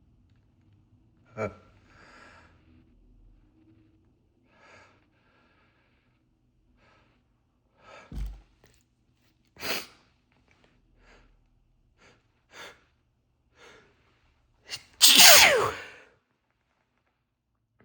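A man sneezing in a fit brought on by sneezing powder: short, sharp breaths and smaller sneezes scattered through, then one big, loud sneeze about fifteen seconds in whose voice slides down in pitch.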